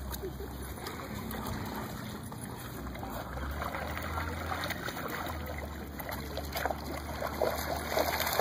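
Dogs wading and swimming in shallow lake water: soft sloshing and light splashes, which grow more frequent near the end, over a steady low rumble.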